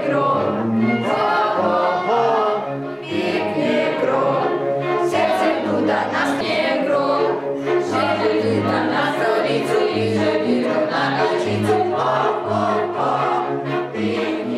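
Background music: a song with several voices singing together over a steady bass line.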